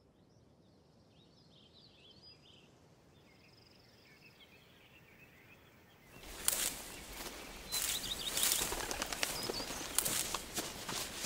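Faint birds chirping at first. About six seconds in, louder outdoor sound begins: footsteps and rustling through tall garden plants, with a bird repeating a short chirp.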